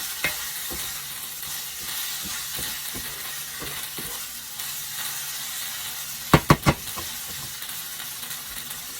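Rice noodle stir-fry sizzling in a hot pan while it is stirred and tossed, with soft knocks of the spatula throughout. A little past halfway come three quick, loud clanks of the utensil against the pan.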